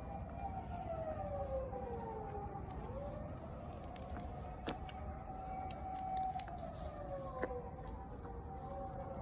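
Emergency vehicle sirens wailing, their pitch sliding slowly down and back up, with more than one tone overlapping. There are two short sharp clicks about halfway through and near the end.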